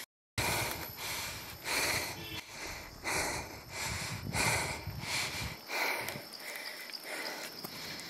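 A cyclist breathing hard, a loud breath about once a second, while pedalling up a very steep climb. A low rumble runs beneath it and stops about five and a half seconds in.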